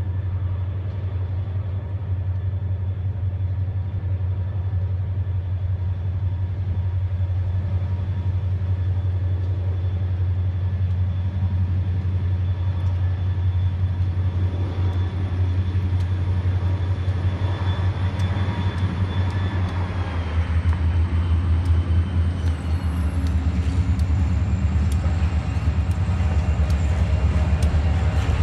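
Diesel locomotive Boston & Maine 326 working in notch 8 (full throttle) as it approaches, a steady low drone that grows gradually louder, with a faint high whine that drops in pitch about three quarters of the way in.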